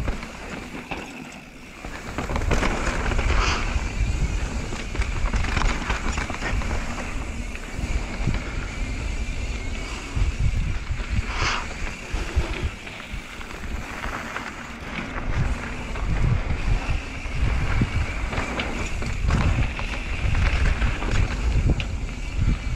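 Wind buffeting the microphone of a GoPro on a moving mountain biker, with tyres rolling on a dirt trail and a few sharp rattles of the bike over rough ground. The rush picks up about two seconds in as the rider gathers speed.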